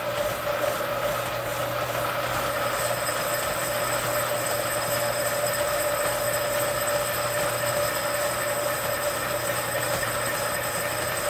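Metal lathe running while a boring bar takes a cut inside a bore, a steady machine whine with higher tones joining about two and a half seconds in. The tool post has just been reset to cure chatter, and this pass runs smoother.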